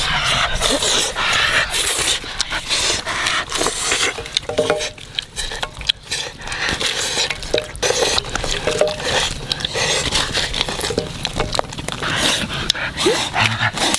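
Cooking clatter: ingredients dropped and handled in a black metal wok of water, with many short clinks, taps and scrapes.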